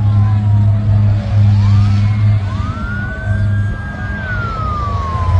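Several emergency vehicle sirens wailing over one another, their pitch rising and falling slowly, one climbing about halfway through, holding, then sliding down near the end. A steady low rumble sits underneath.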